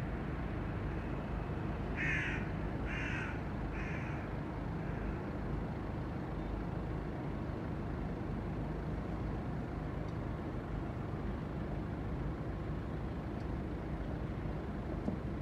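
A crow cawing three times, about a second apart, over a steady low rumble of outdoor background noise.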